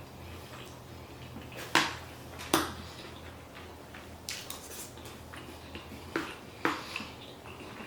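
Eating utensil clicking against a plate or food container during a meal: a handful of sharp clinks, the two loudest about two seconds in and half a second apart, then lighter ones later.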